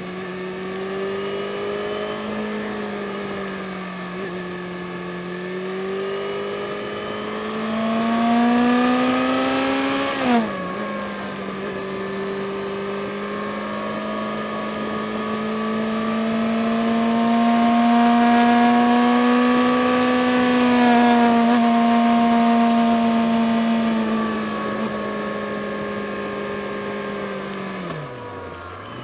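Yamaha FZ6 S2 Fazer's 600 cc inline-four running under load while climbing. Its note rises, then the revs drop sharply about ten seconds in at a gear change. Near the end the revs dip low and pick up again, with wind rushing over the microphone at the faster stretches.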